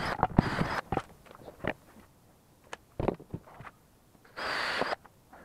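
Cordless drill boring into wooden boards: a burst of drilling that stops under a second in, a few knocks and clicks, then another short burst of drilling near the end.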